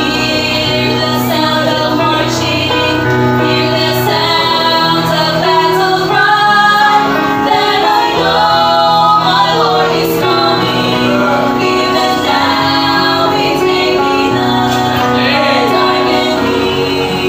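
A vocal trio singing a gospel song in harmony, with sustained notes over instrumental accompaniment.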